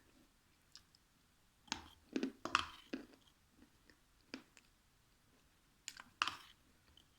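Close-miked eating sounds: wet chewing and clicking mouth noises, in a cluster about two seconds in and another near six seconds, with a few single clicks between.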